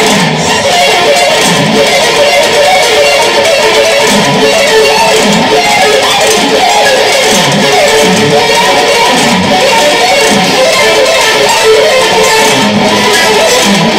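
Electric guitar played in a fast, dense, unbroken stream of notes, in shred style.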